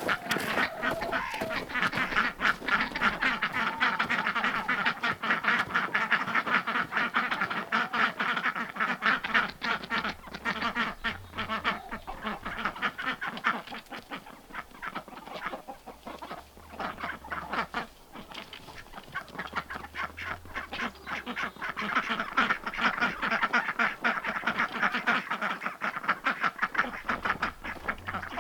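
A flock of domestic ducks quacking and chattering over one another without a break. It is busiest at first and again in the last few seconds, easing off somewhat around the middle.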